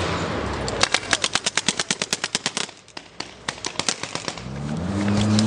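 Paintball markers firing in a rapid volley of sharp pops, about ten a second for two seconds, then a few scattered shots. A car engine runs beneath and rises in pitch near the end as it speeds up.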